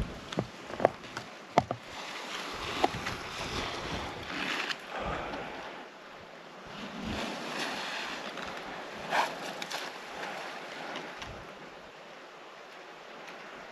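Wind gusting across the microphone, rising and falling, with a few sharp clicks in the first two seconds.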